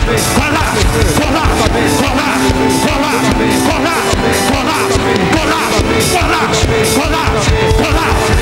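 Loud live church praise music with a beat and held chords, with many voices of a congregation praying and singing aloud over it.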